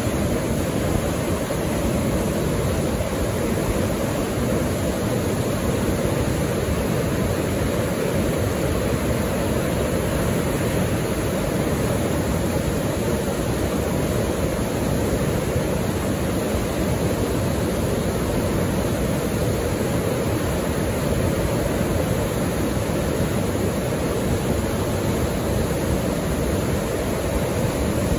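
Steady rushing of whitewater: a large river pouring through a boulder rapid, a constant deep noise with no breaks.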